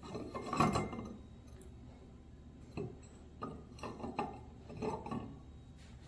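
Stoneware plates and bowls clinking and knocking against each other as they are handled: a cluster of clatter about half a second in, then several lighter knocks in the second half.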